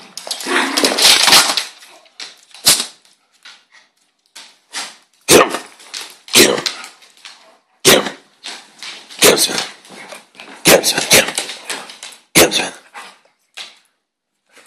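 Two dogs, a small terrier-type dog and a large poodle-type dog, wrestling: a long noisy scuffle in the first two seconds, then a string of short, sharp barks, about seven, roughly one every second or so.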